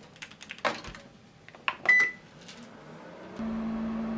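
Toshiba oven range door shut with a clunk, a control-panel click with a short beep about two seconds in, then the oven starting up with a steady hum as it begins to bake.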